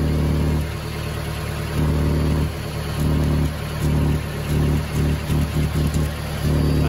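Mitsubishi Pinin's engine idling, heard close to the exhaust, its low exhaust sound swelling and dropping in uneven pulses, choppier in the second half, while a bare hand is held around the welded pipe-to-muffler joint to feel for leaking gas. That joint has just been found to leak exhaust.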